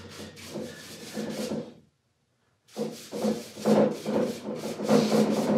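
Foam brush rubbing back and forth across a plywood cornhole board top, spreading water-based polycrylic in quick strokes, about three a second. The sound cuts out completely for under a second about two seconds in.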